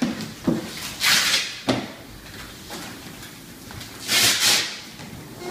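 Velcro straps on a hard bass flight case being ripped open: two short tearing rips, about three seconds apart. A couple of light knocks from handling the case come in between.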